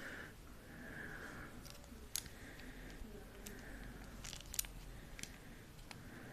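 Soft scattered clicks and rustling from a new product's container being handled and fiddled with while trying to open it.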